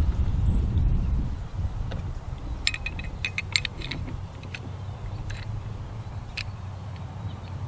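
Beretta ARX-100 bolt and bolt carrier being handled during reassembly: a quick cluster of light metallic clicks and clinks a few seconds in, then a few single clicks. A low rumble in the first second.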